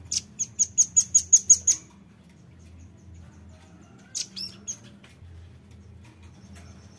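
Velvet-fronted nuthatch calling: a fast run of about ten sharp, high chips in under two seconds, then three more chips a couple of seconds later.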